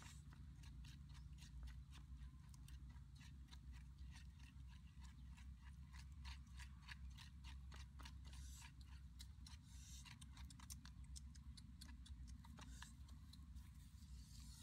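Faint, irregular crackling of a small wood fire: sharp pops and ticks, several a second, thickest in the middle, over a steady low rumble.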